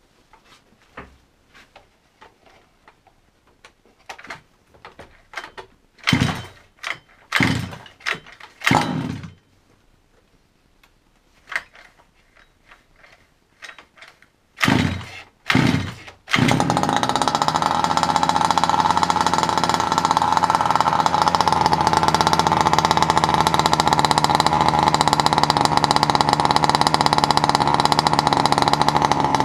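Small two-stroke petrol engine of a 1/5-scale RC buggy being started: scattered clicks, then several short cranking bursts that die away, before it catches about sixteen seconds in and runs steadily through a homemade back-pressure exhaust of welded 1 mm steel sheet, a sound its owner calls meaty.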